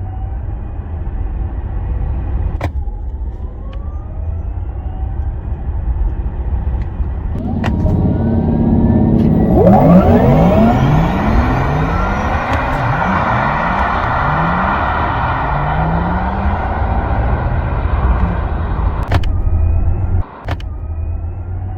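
VinFast VF8 electric SUV's synthesized spaceship-like driving sound effect, over the car's low road rumble. About seven seconds in it swells into a loud layered tone with many pitches sweeping up and down, then drops away after about nineteen seconds. A few sharp clicks come in between.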